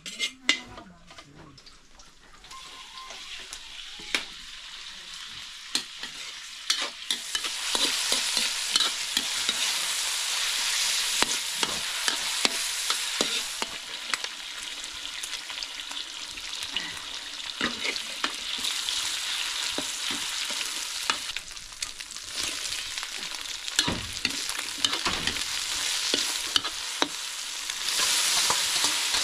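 Food frying and sizzling in a hot pan over a fire while it is stirred, with frequent clicks and scrapes of the utensil against the pan. The sizzle builds up over the first several seconds and then stays strong.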